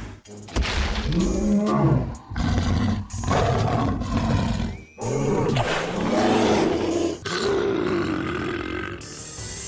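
Dinosaur roar sound effects, about five long roars one after another with short breaks between them, under some background music.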